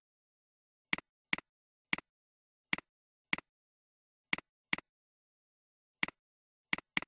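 Computer mouse button clicking about ten times at uneven intervals, each click a sharp double tick of press and release.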